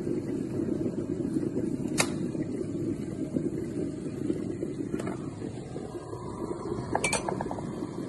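Tough Mama NTMJK18-G 1.8 L glass electric kettle at a rolling boil, water bubbling and rumbling steadily. A sharp click comes about two seconds in and a fainter one near five seconds, and a few light clinks sound about seven seconds in as the kettle is lifted off its base.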